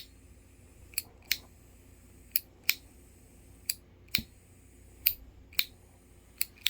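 A Zippo butane lighter insert's igniter clicking as it is pressed and released over and over: about ten sharp clicks, mostly in pairs a third to half a second apart.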